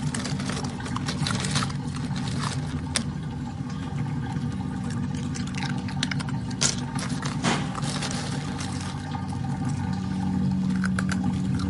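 A baby otter crunching and scraping ice: irregular clicks and scrapes, a few sharper ones, over a steady low hum.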